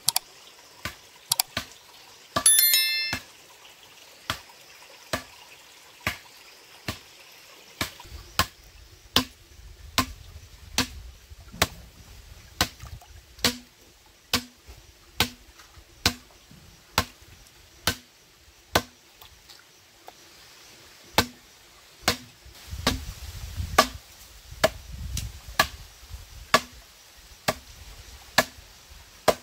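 Steady hand chopping: sharp strikes of a blade or stick on wood against a rock. A few strikes come irregularly at first, then settle about eight seconds in into a regular beat of roughly one a second, with a short pause near twenty seconds. About two and a half seconds in there is a short, loud, high-pitched ring, and a stream trickles faintly underneath.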